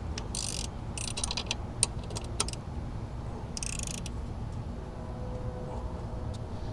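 Ratchet with a 10 mm socket clicking in a few short runs of strokes, with single metallic clicks between them, as the nut on the alternator's ground wire is run down. The clicking stops about four seconds in.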